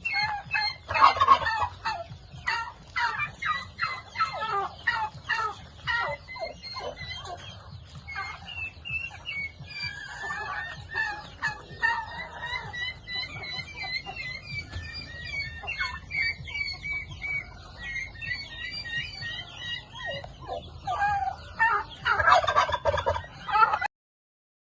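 A flock of turkeys and other poultry calling: bursts of gobbling and clucking, with many short high peeps in between. The sound cuts off abruptly near the end.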